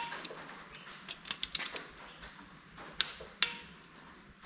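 Torque wrench ratchet and socket on connecting-rod nuts: a scatter of small metallic ratchet ticks and clicks, with two sharper clinks about three seconds in, as the nuts are turned through their final quarter turn after torquing.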